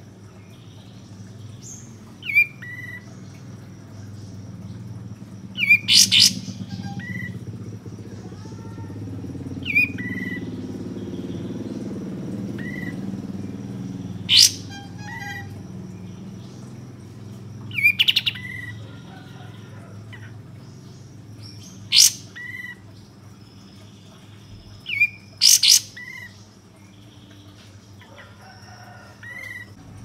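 Olive-winged bulbul (kapas tembak) calling: loud, sharp notes every few seconds, some doubled, with softer short chirps in between. A low background rumble swells and fades around the middle.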